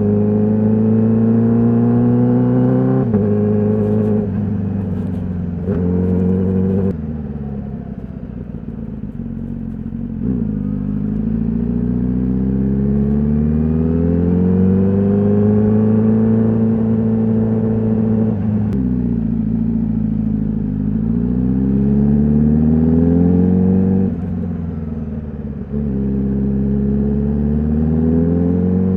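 Honda CBR1000RR-R SP's inline-four engine on its stock exhaust, accelerating hard, its pitch climbing and then dropping sharply at each quick-shifter upshift. There are short cracks at some of the shifts. It eases off and falls in pitch twice, then pulls up through the revs again.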